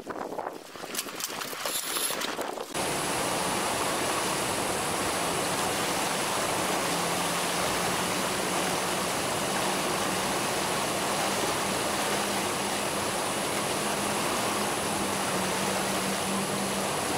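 Loud, steady rush of churning river rapids, with the low, steady hum of a motor longboat's engine underneath from about six seconds in. The first few seconds before a sudden cut hold gusty wind on the microphone over lapping water.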